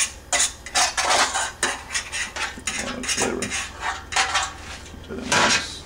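A metal utensil clanking and scraping against a metal loaf pan and an enamel roasting pan as pieces of meat are shifted between them. It is an uneven run of short clinks and scrapes, with the longest and loudest about five and a half seconds in.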